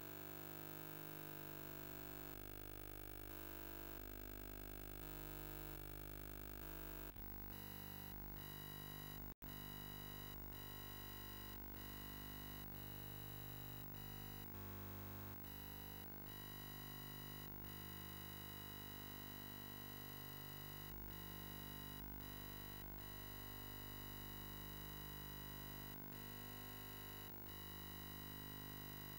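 Faint, steady electrical hum and whine made of many fixed tones over a low mains-like hum. Its pattern shifts abruptly about seven seconds in, then holds steady with small flickers.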